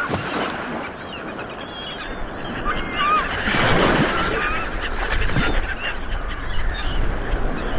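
Ocean waves rolling and breaking, the surf swelling about three and a half seconds in. Several short, high bird calls sound over the surf in the first half.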